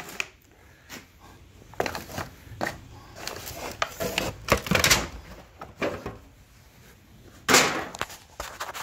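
Handling noises: irregular knocks, clatters and scrapes as a pan and hardened wax-and-sawdust firestarter cakes are moved about on a board, with the loudest knock near the end.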